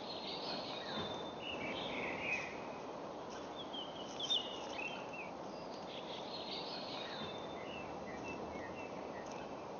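Outdoor ambience: several birds chirping and singing over a steady background of distant noise.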